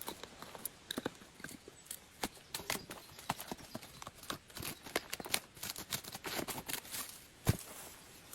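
A run of irregular sharp clicks and knocks, a few each second, with one heavier knock near the end.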